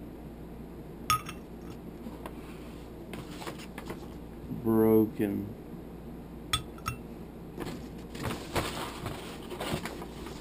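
Small hard pieces of a broken fingerboard order clicking and clinking as they are handled and set down, with a few sharp clicks and a stretch of rustling and scraping near the end.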